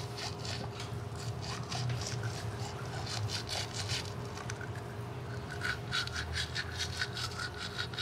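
Toothbrush scrubbing teeth in quick back-and-forth strokes that come and go in runs, over a steady low hum.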